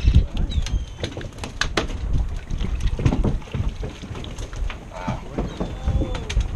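Wind buffeting the microphone on an open boat deck, loudest right at the start, with scattered sharp clicks and knocks throughout. Brief high gull calls come in shortly after the start and again near the end, with faint voices about five seconds in.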